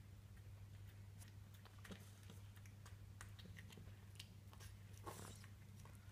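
A Devon Rex cat chewing broccoli and mashed potato from a bowl: quiet, irregular crunching clicks, with one louder bite about five seconds in. A steady low hum runs underneath.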